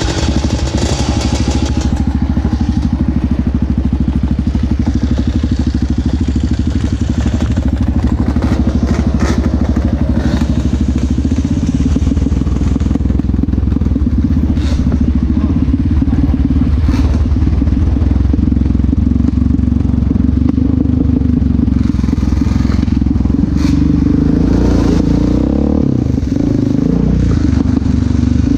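Yamaha Raptor 700R's single-cylinder four-stroke engine running as the quad is ridden along a rocky dirt trail. The engine note holds steady, then rises and falls a few times near the end. Occasional knocks and clatters come from the quad over the rocks.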